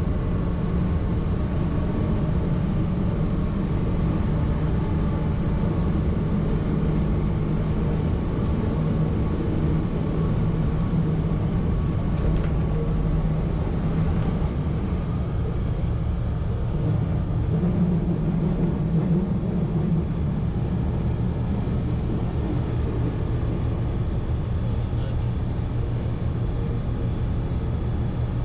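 A 1920s CPH railmotor's engine running with a steady low drone. It swells slightly for a few seconds about two-thirds of the way through.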